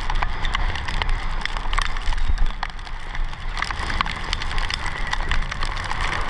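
Wet-road hiss from tyres rolling over rain-soaked pavement, with rain ticking sharply and irregularly on the camera and a low wind rumble underneath.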